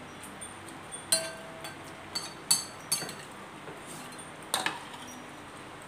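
Eating utensils clinking against ceramic noodle bowls: about half a dozen sharp, separate clinks, a couple of them ringing briefly.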